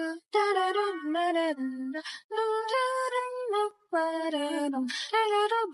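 A high-pitched singing voice carrying a melody in short phrases, with brief breaks between them and no words made out.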